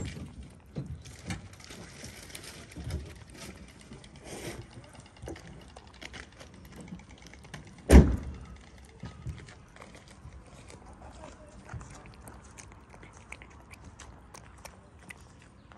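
Cats chewing and lapping wet cat food from foam trays close to the microphone, a run of soft wet clicks and smacks. One sudden loud thump comes about halfway through.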